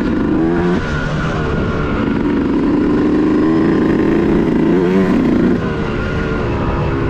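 Yamaha YZ125's 125cc single-cylinder two-stroke engine running under a rider on a motocross track, its note rising and falling with the throttle, and a brief dip in level a little past halfway.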